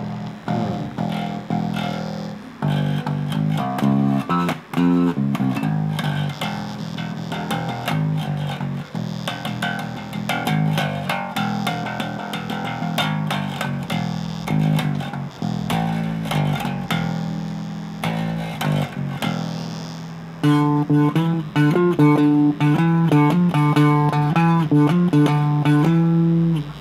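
Electric bass guitar played through a Joyo MA-10B micro bass amp, with gain, volume and tone at half: a run of plucked notes and short phrases, played louder with more sustained notes from about twenty seconds in. A slight buzz sits under it, which the player traces to his bass's pickup.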